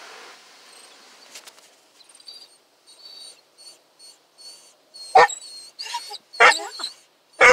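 A basset hound whining and 'talking' in short, pitch-bending calls, faint and high at first, then several louder calls in the last few seconds: a worried dog.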